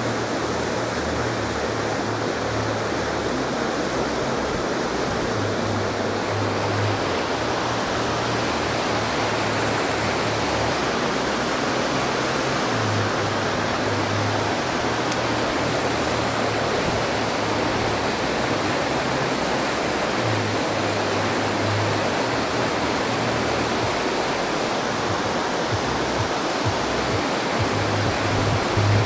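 Steady rushing of water pouring through a dam, loud and unbroken, with a low rumble that comes and goes.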